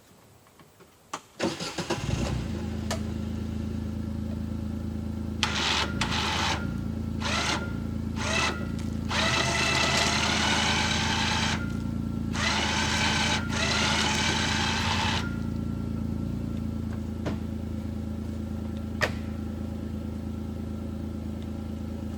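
Kawasaki Mule utility vehicle's engine cranked and catching, then idling. It revs up several times, briefly at first and then in two longer pulls, before settling back to a steady idle.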